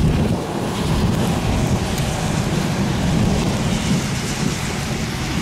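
Gusty storm wind buffeting the microphone: an uneven low rumble with a fainter hiss above it.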